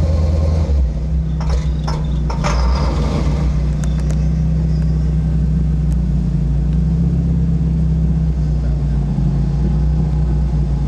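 Lifted pickup truck's engine running at low, steady revs while it crawls over a dirt hill crest and down the slope. A few short clicks and crackles come about one to four seconds in.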